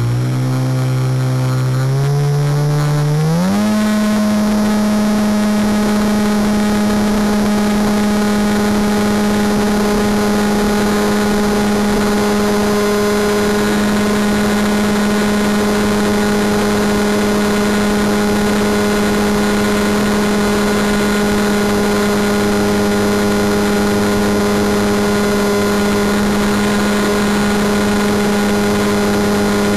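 Electric motor and propeller of a Wing Dragon 4 RC plane, heard from the camera mounted on the plane. Its pitch climbs over the first three or four seconds as the throttle opens, then holds a steady drone.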